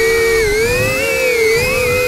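DJI Avata FPV drone's propellers and motors whining in flight, several close pitches drifting up and down together as the throttle changes.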